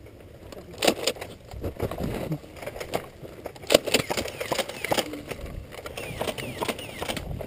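Scattered irregular clicks, knocks and scuffs of someone moving about, with faint distant voices.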